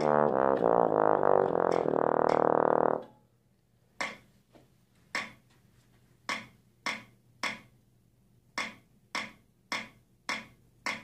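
Bass trombone playing a quick run of scale notes in overlapping groups of five, ending on a held note that stops about three seconds in. Then a string of sharp clicks, roughly one every half second to a second.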